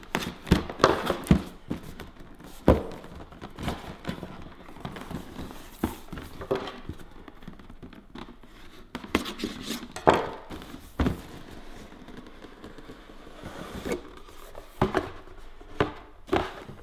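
A knife cutting through the seal on a cardboard box, followed by cardboard scraping, sliding and knocking as the lid is opened and the packaging is handled. The sound is a scattered series of short scrapes and knocks.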